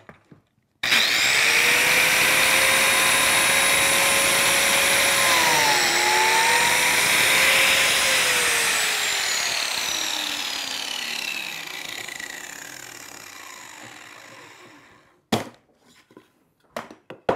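Biscuit joiner's motor switched on, running at full speed with a high whine, its pitch dipping briefly about six seconds in as the blade plunges into the wood to cut a slot for a number 10 biscuit. It is then switched off and winds down with a falling whine over about seven seconds, followed by a few light clicks and knocks.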